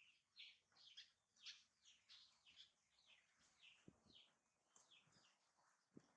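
Faint chirping of small birds: many short, high, falling chirps, several a second, with a couple of soft low knocks in the second half.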